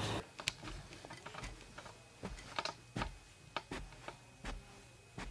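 About a dozen short, sharp clicks and taps at uneven spacing, faint against near-quiet room tone.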